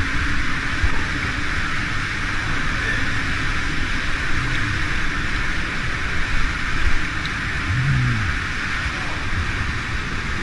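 Canyon stream water rushing and churning through a narrow rock slot, a steady, unbroken noise.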